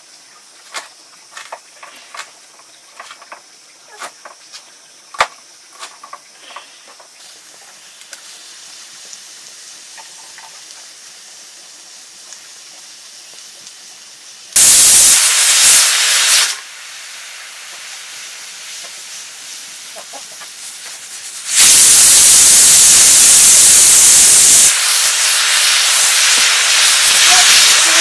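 Food sizzling in a hot pan: faint clicks and crackles at first, then two sudden loud bursts of sizzling about halfway through and later, the second running on a little quieter.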